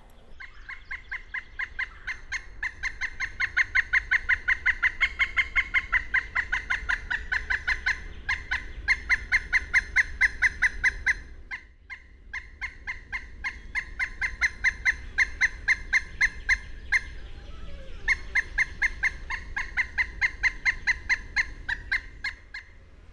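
Pileated woodpecker calling: long runs of rapid, evenly spaced notes, several a second, breaking off briefly about halfway through and again a few seconds before the end.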